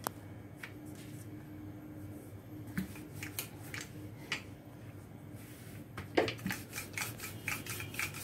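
Rolling pin working paratha dough on a rolling board: scattered light clicks and knocks, coming thick and fast over the last two seconds, over a faint steady hum.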